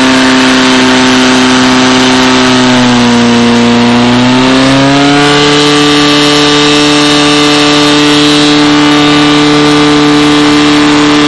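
Portable fire pump engine running hard at high revs, pressurising the hoses that feed two water jets. Its pitch sags about three seconds in, climbs back about five seconds in, then holds steady.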